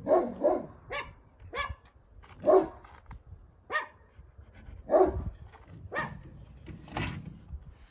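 A dog barking repeatedly: about nine short barks, roughly one a second at uneven spacing. These are alert barks, a guard dog raising the alarm at something.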